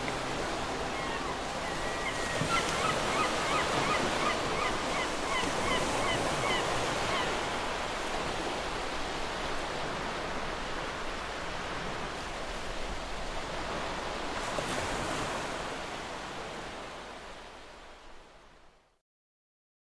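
Ocean surf washing steadily on the shore, with a quick run of repeated bird calls a couple of seconds in. The surf fades out near the end.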